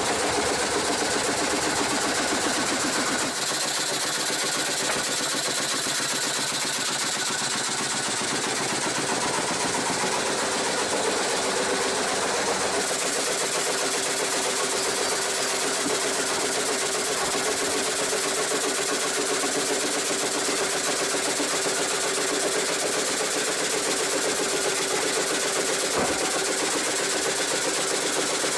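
Engine-driven machinery running steadily with a rapid mechanical rattle; the sound changes abruptly about 3 seconds in and again near 13 seconds.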